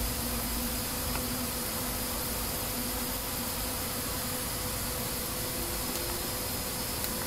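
Steady hiss with a faint low hum, the background noise of a computer recording setup, and a couple of faint clicks.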